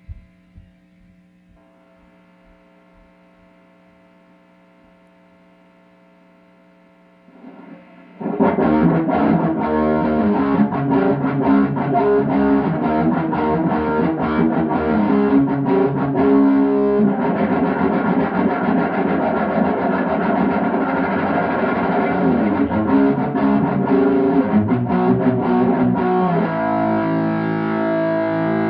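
Steady amplifier hum for about eight seconds, then an electric guitar played loud through overdrive distortion, busy playing that settles into sustained ringing notes near the end.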